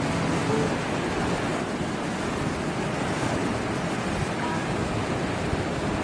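Sea surf breaking on a sandy beach and around rocks, a steady, even rush of waves.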